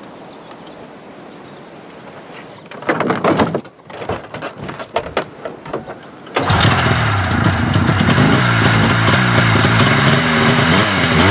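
A vintage snowmobile's two-stroke engine being pull-started: a few seconds in it sputters in uneven bursts, then about six seconds in it catches and runs steadily, its pitch wavering with small throttle changes.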